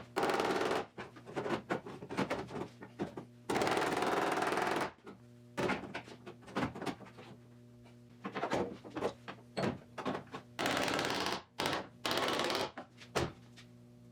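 Rapid, irregular hammer taps on the steel skin of a car door as a dent is knocked back out, with a few stretches of steady noise in between.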